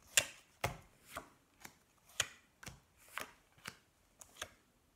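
Playing cards being turned over and slapped down one after another onto a pile on a glass tabletop, about two sharp slaps a second.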